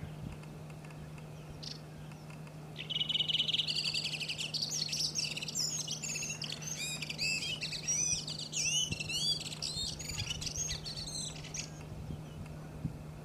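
Redwing singing. About three seconds in, a fast buzzy trill opens a long, rambling run of varied chirps, twitters and whistles, which stops about eleven and a half seconds in.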